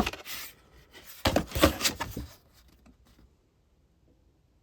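Packaging being handled while items are taken out of a shipping box: a sharp knock at the start, then a second or so of rustling and scraping with small knocks, fading out after about two seconds.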